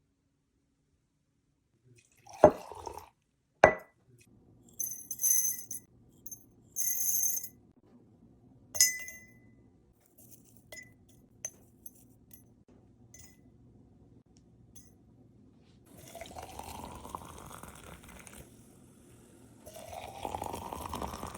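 Glass clinking a few times as it is set down and handled, then liquid poured into a glass twice, each pour rising in pitch as the glass fills.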